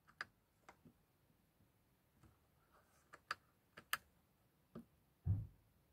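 Faint, scattered clicks from a BMW Z4 E89 turn-signal stalk's BC button and menu wheel being pressed while stepping through the cluster's menus: single clicks near the start, a pair about three seconds in and another near four seconds. A soft low thump comes near the end.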